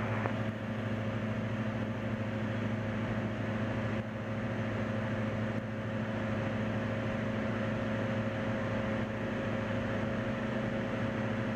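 Single-engine light aircraft's piston engine and propeller running steadily in flight, heard inside the cabin as a constant drone with a few fixed tones.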